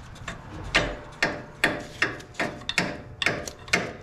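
Hand tools, most likely pliers, working on metal suspension parts: a run of sharp metallic knocks and clacks, about two a second, each ringing briefly.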